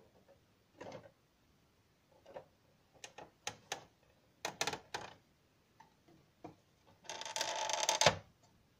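Light plastic clicks and taps from handling a toy refrigerator, then a louder rasping scrape lasting about a second near the end as its plastic door is pulled open.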